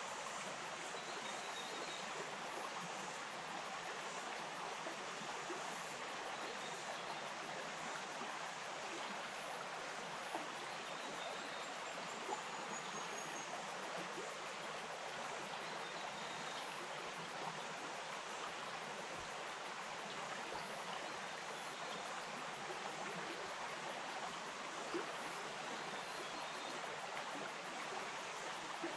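Stream water flowing steadily, an even rushing and burbling, with a few faint high chirps over it.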